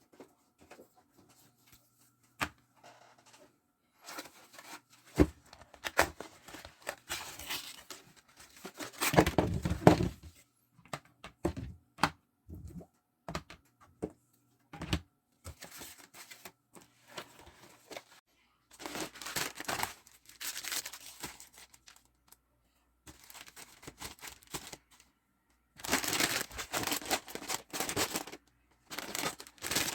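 Plastic packaging crinkling and tearing in bursts as packs are opened and handled, with scattered clicks and knocks as items are set down.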